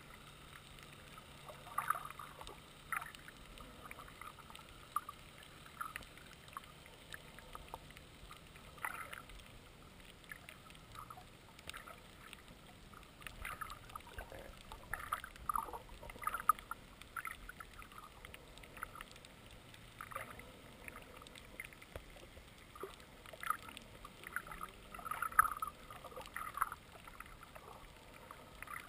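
Underwater ambience heard through a GoPro's waterproof housing: a faint, muffled hiss with scattered irregular crackles and clicks, a louder cluster of them near the end.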